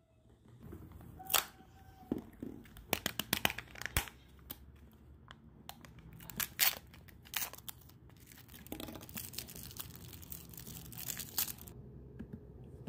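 A plastic blister pouch holding a surprise toy being torn open by hand: sharp crackles and rips of the thin plastic and its printed lid, then a denser stretch of crinkling later on.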